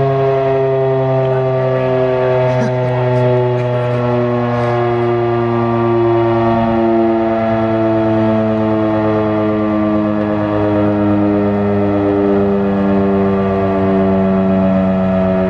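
Federal Signal Model 5 outdoor warning siren sounding loud and unbroken on its attack test, its tone sagging slowly in pitch.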